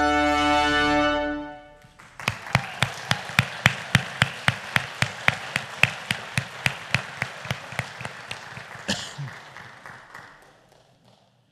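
A brass ensemble of trumpets, trombone and low brass ends on a held chord that cuts off about a second and a half in. After a short pause the congregation applauds, one nearby clapper standing out at about three claps a second, and the applause fades away near the end.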